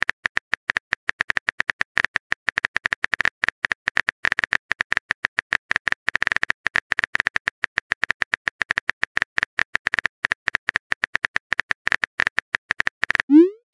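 Rapid simulated keyboard typing clicks from a texting-story app, several a second, as a message is typed out letter by letter. A short rising tone comes just before the end.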